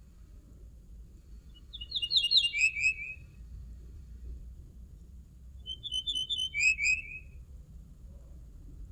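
Common linnet singing: two short phrases of quick, repeated notes, about four seconds apart, the second phrase ending in lower notes.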